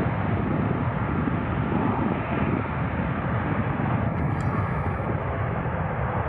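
Jet airliner engines running, a loud, steady, even rush of noise with no change in level.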